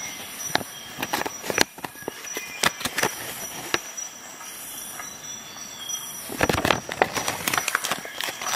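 Paper rustling and crackling as printed leaflets and a warranty card are handled and their pages flipped, with many sharp little crackles and a louder rustle about six and a half seconds in.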